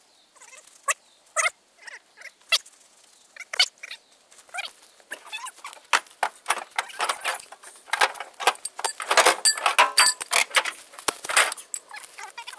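Footsteps crunching through dry harvested corn stalks: irregular crackles, sparse at first, then denser and louder from about halfway through as the walker comes close.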